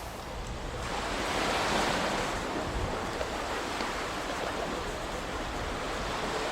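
Ocean waves breaking and washing on a shore: a steady rush of surf that swells to a peak about two seconds in and then eases off.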